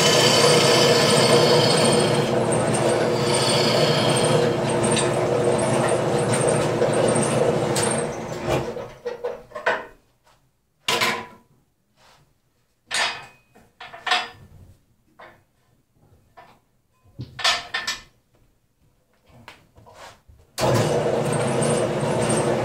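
Wood lathe spinning a wet mulberry bowl blank with a gouge cutting it, a steady machine hum under the scraping of the cut. About eight seconds in the lathe runs down and stops, followed by scattered knocks and clatters of the tool and tool rest being handled. Near the end the lathe starts running again at full noise.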